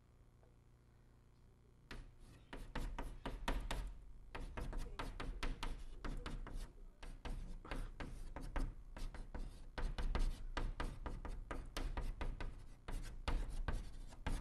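Chalk writing on a blackboard: a quick, irregular run of taps and scrapes as characters are written stroke by stroke. It starts about two seconds in.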